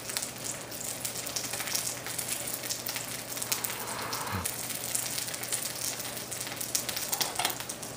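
Oil sizzling and crackling steadily in a frying pan as a tortilla quesadilla crisps in it.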